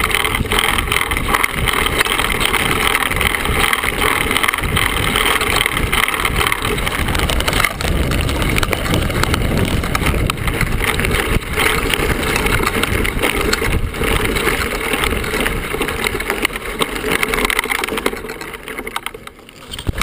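Mountain bike rolling fast down a loose gravel track: a steady rush of wind and tyre noise over stones, with the bike's frame and parts rattling over the bumps. It eases off near the end as the bike slows to a stop.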